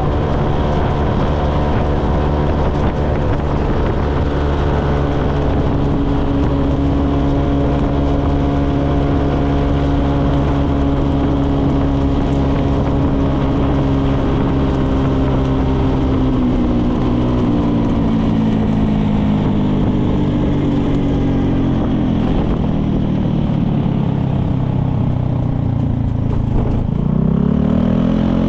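Motolux MTX 125 motorcycle's 125cc engine running steadily while riding, heard from the rider's position. Its pitch falls slowly in the second half as the bike eases off, then rises again near the end as the throttle opens.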